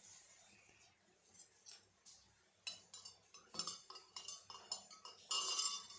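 A run of light clinks and taps of small hard objects, each with a brief high ringing, starting a little over halfway in and loudest just before the end.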